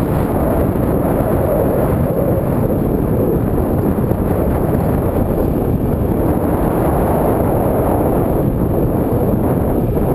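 Wind rushing over the microphone of a camera mounted on a moving bicycle: a loud, steady rumble.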